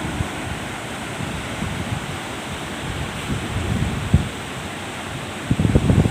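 Large ocean waves surging, a steady rush of surf. Wind buffets the microphone with low gusts, growing stronger about five and a half seconds in.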